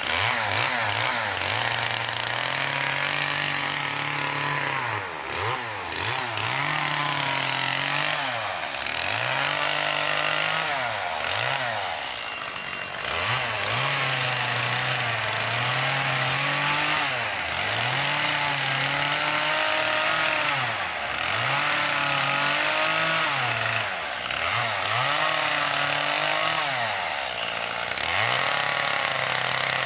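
Gas chainsaw carving wood, the engine revving up and falling back again and again as the throttle is worked, with a hiss of cutting over it.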